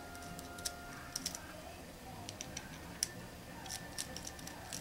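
Faint, irregular small clicks and ticks of metal fittings as debris filters are threaded by hand into the exhaust ports of a pneumatic solenoid valve, with a sharper click about three seconds in.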